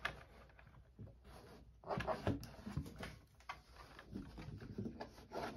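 Faint, irregular rustling and light knocks from hands shifting a 1/8-scale nitro RC car, with a hard plastic body, into position on corner weight scales.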